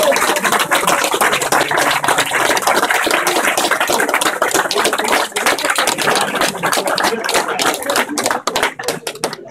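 Crowd applauding: dense hand clapping that thins out into separate claps near the end.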